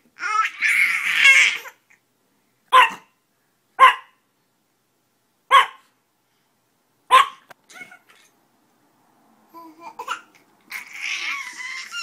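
A small dog giving short, sharp single barks, four of them spaced a second or more apart. A baby babbles and laughs near the start and again near the end.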